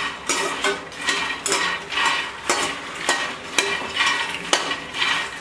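Metal spoon stirring and scraping puffed phool makhana (lotus seeds) around a stainless steel pan, in steady scraping strokes about two a second as the seeds tumble. The seeds are being roasted in ghee over low heat until golden and crisp.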